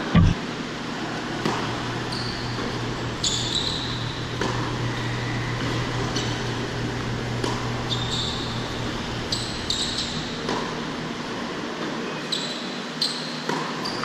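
Tennis rally on an indoor hard court: sharp pops of racquets striking the ball and the ball bouncing, every second or two, with short high squeaks of shoes on the court. A heavy thump just after the start is the loudest sound, and a steady low hum of the hall's ventilation runs underneath.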